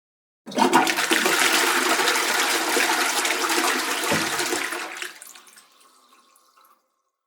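Toilet flushing: a sudden rush of water starts about half a second in, runs steadily for about four and a half seconds, then dies away over the next second or two.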